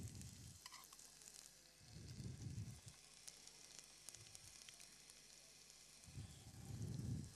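Food frying faintly in a pan, a soft steady sizzle with fine crackles. Low muffled rumbles swell at the start, about two seconds in and near the end.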